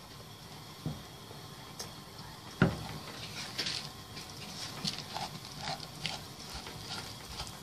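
Silicone spatula stirring dry rice grains as they toast in oil and butter in a non-stick pan: a light rustling patter of shifting grains with small scattered ticks, and one sharp knock of the spatula against the pan about two and a half seconds in.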